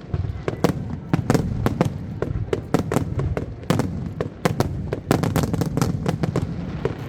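Aerial fireworks going off in quick succession: many sharp cracks and pops, several a second, over a continuous low rumble of bursting shells.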